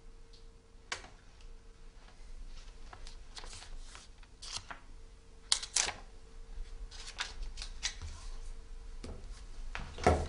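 Paper rustling and small clicks and taps of things handled on a wooden table, with two sharp clicks a little past the middle and a heavier thump near the end. A faint steady hum runs underneath.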